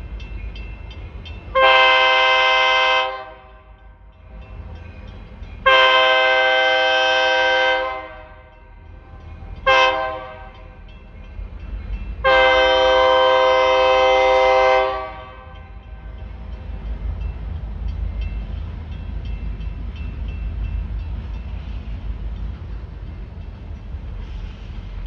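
Escanaba & Lake Superior EMD SD40 locomotive's multi-chime air horn sounding the grade-crossing signal: two long blasts, one short, one long, each a chord of several tones. After the last blast the locomotives' diesel rumble builds as the train nears.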